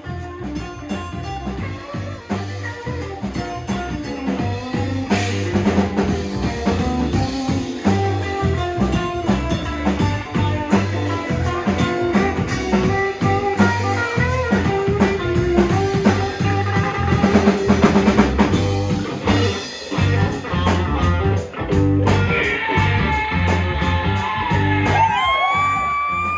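Live rock band playing an instrumental passage: drum kit and bass keep a steady beat under sustained lead lines. Near the end a high lead note slides up and is held.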